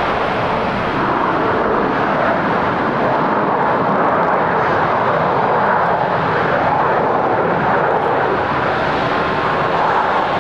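Boeing 737-800's CFM56 jet engines running as the airliner rolls out after landing, a steady jet noise that swells slightly mid-way.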